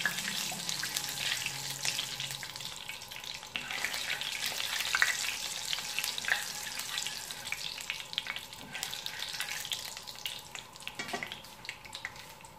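Cumin seeds sizzling and crackling in hot oil as they are stirred with a spatula and fry until browned. The sizzle dies down toward the end.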